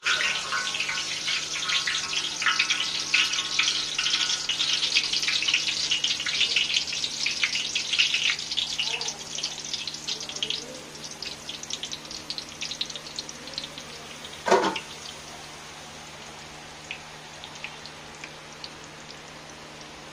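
Drops of gram-flour boondi batter falling through a perforated ladle into hot oil in an iron kadai, sizzling and crackling. The crackling is dense and loud for about the first ten seconds, then thins to a quieter fizz. A single sharp knock comes about two-thirds of the way through.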